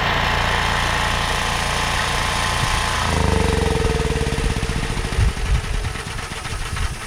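Angle grinder running with a steady whine, then switched off about three seconds in, its whine falling in pitch as the wheel spins down, followed by scattered knocks of metal being handled.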